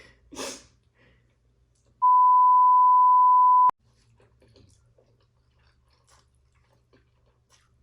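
A steady high beep, a censor bleep laid over the audio, starts about two seconds in, lasts under two seconds and cuts off sharply with a click. Before it comes a short breathy burst; afterwards there are faint small mouth and chewing sounds.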